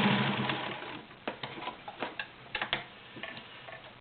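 Kenmore 1703 sewing machine running as it stitches through layers of garment leather, slowing and stopping about a second in. A scattered series of light clicks and taps follows.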